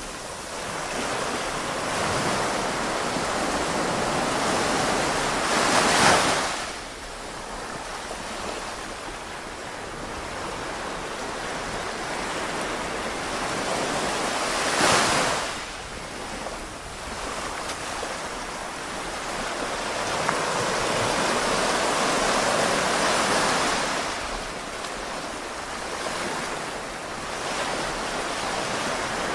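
Surf washing onto a beach in slow swells, with two louder surges of breaking water about six and fifteen seconds in.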